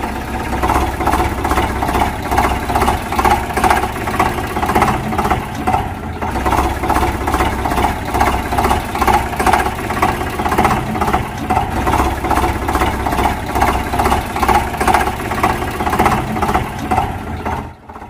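Tractor engine sound, chugging steadily with an even pulse of about four beats a second, cutting off abruptly near the end.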